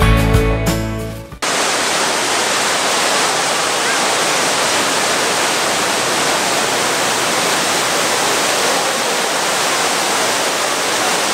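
Background music fading out in the first second or so, then a sudden cut to the steady rush of water pouring from the ceiling bowl of Marina Bay Sands' Rain Oculus down into the pool below.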